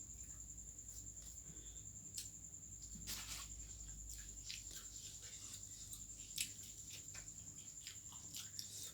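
Close-up eating sounds: a person chewing, with irregular wet clicks and smacks of the mouth and a short louder crunch about three seconds in, over a faint steady high-pitched whine.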